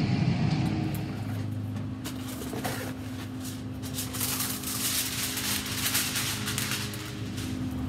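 Heavy-duty aluminium foil being pulled off the roll and handled, a crinkling rustle through the middle of the clip, over a steady low hum.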